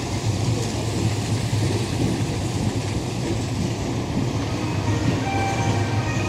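Tobu 20000 series electric commuter train running along the platform as it pulls into the station, with a steady rumble of its wheels on the rails. Faint steady high tones join in near the end.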